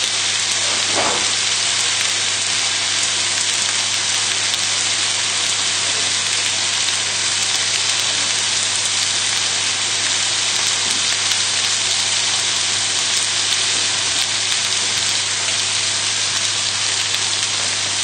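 Steaks searing in a very hot oiled pan, sizzling steadily and evenly; a strong sizzle like this is the sign that the pan is hot enough.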